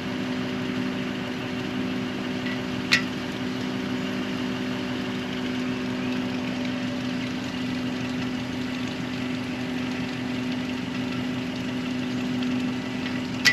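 An engine idling steadily with an even hum, with one sharp click about three seconds in.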